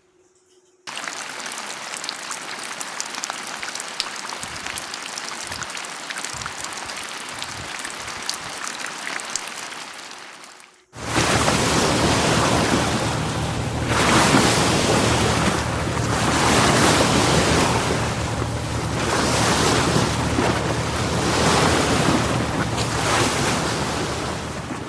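Outdoor water ambience: a steady hiss with faint crackles, then an abrupt cut about eleven seconds in to louder surf, washing in and out in swells over a low rumble.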